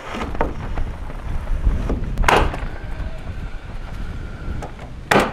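Strong wind buffeting the microphone in a steady low rumble, with a sharp bang about two seconds in and another just before the end.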